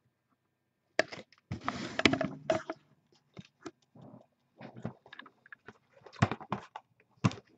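Cardboard boxes of trading cards being handled on a table. A cluster of scrapes and rustling comes about a second in, followed by scattered knocks and taps as the boxes are moved and set down.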